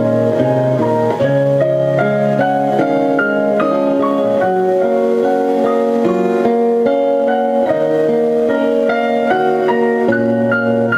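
Piano-led music played back through a home-built MasterKit class-B amplifier and loudspeakers in a listening test, picked up by the camera's microphone in the room. Steady level, with the notes changing every fraction of a second.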